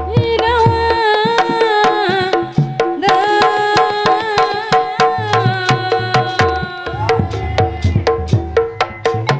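Sundanese ronggeng music: kendang hand drums beating a steady rhythm with deep low strokes, while a singer's line of long, bending held notes runs over it in two phrases, ending about seven seconds in and leaving the drumming alone.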